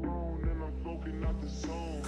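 Background music with a steady bass beat and a bending melodic line.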